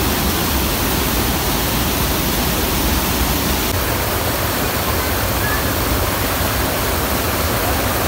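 Waterfall pouring over a wide rock wall into a shallow pool close by: a steady, unbroken rush of falling water.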